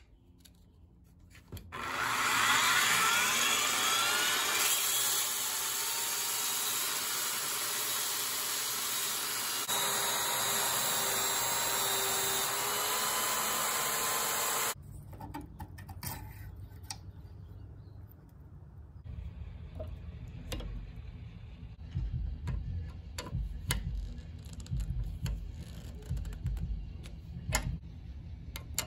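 Ridgid handheld belt sander running while a knife blade is ground against its abrasive belt, a loud steady grinding rasp. It cuts off suddenly about halfway through, leaving quieter scattered clicks and knocks of tools being handled.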